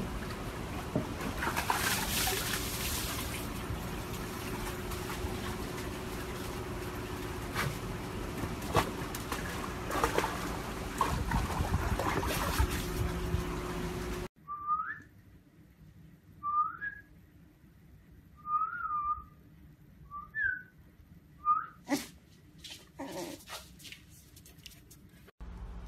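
For the first half, a husky shifts about in a plastic tub of water, with water sloshing and splashing over a steady noisy background. After a sudden change about halfway through, a fluffy husky puppy gives about seven short, high, whistle-like whines, and a few sharp taps come near the end.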